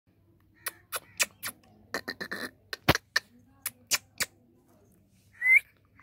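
Indian ringneck parakeet making a run of sharp clicks, about a dozen over three seconds, then one short rising whistle near the end.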